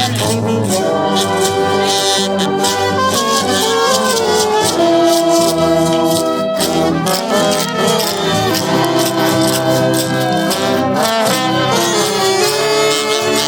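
Marching brass band playing a tune: horns sounding held and moving notes over steady drum and percussion hits.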